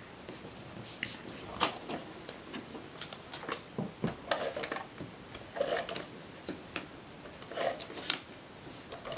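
Hands handling cardstock and a handheld adhesive tape dispenser laying tape on a small paper square: scattered light clicks and short paper rustles.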